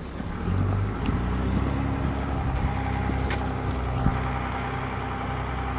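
A motor vehicle engine running steadily, a low hum, with a couple of short clicks.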